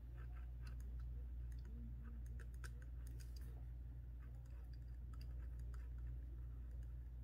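Faint, irregular scratches and ticks of a pen tip writing small letters on a sheet of paper, over a steady low hum.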